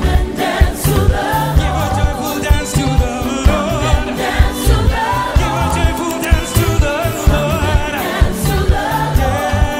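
A group of voices singing an African song together over a steady, driving drum beat.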